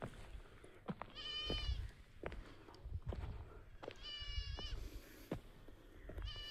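An animal calling: two drawn-out, wavering high calls about three seconds apart, with a third starting near the end, over a low rumble.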